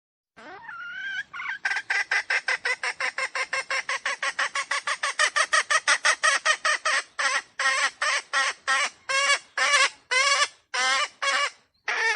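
Red junglefowl (wild chicken) calling: a drawn-out opening note, then a long run of rapid, evenly repeated clucking notes at about five a second that slows to about two a second near the end.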